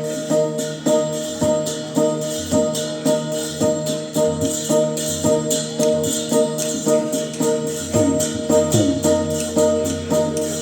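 Traditional Lanna percussion music accompanying a martial-arts dance: pitched metal tones struck at a steady, even beat, with jingling cymbal-like metal on top.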